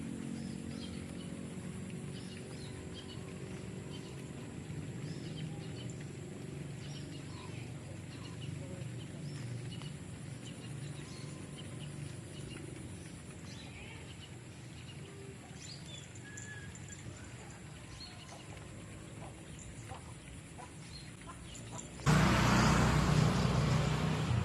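Outdoor yard ambience with scattered faint bird calls, chickens among them. Near the end a much louder rushing noise comes in suddenly.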